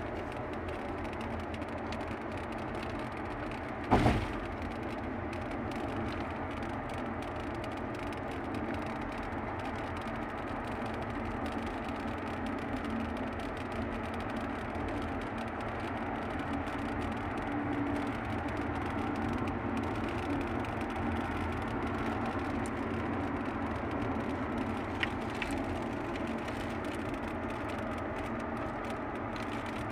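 Steady road and engine noise heard inside a car's cabin while driving on a highway, with a single sharp thump about four seconds in.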